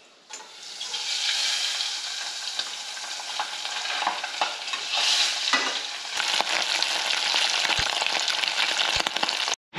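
Chunks of American shad coated in salt and turmeric frying in hot lard in a small pan: a steady sizzle full of small crackles. It starts about a third of a second in, as the pieces are lowered into the fat, and builds over the first second.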